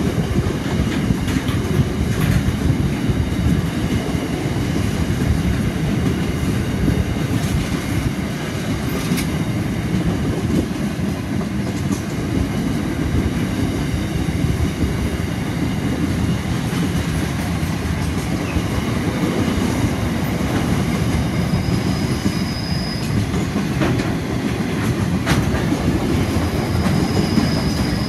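Flat wagons of a long freight train rolling past close by: a steady heavy rumble with scattered clicks of wheels over rail joints. A thin high wheel squeal comes in briefly about two-thirds of the way through and again near the end.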